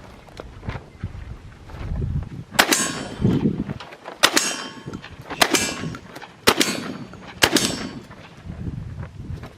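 A string of about five gunshots fired on a shot-timer drill, roughly one a second, each followed by a metallic ring as the rounds hit steel targets.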